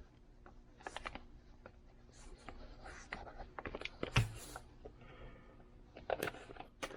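Light scratching and rustling from a package being handled and opened by hand, with scattered small clicks and one louder click about four seconds in.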